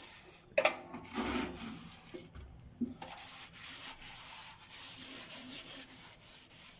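A cloth rubbed back and forth over the inside walls of a microwave oven, wiping off baking-soda-and-vinegar cleaner, in quick short strokes. A sharp knock comes a little under a second in.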